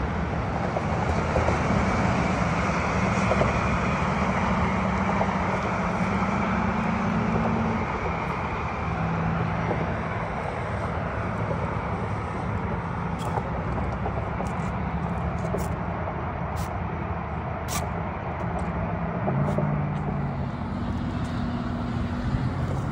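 Steady rumble of road traffic on the highway bridge, with low engine hum rising and falling as vehicles pass and a few light clicks in the second half.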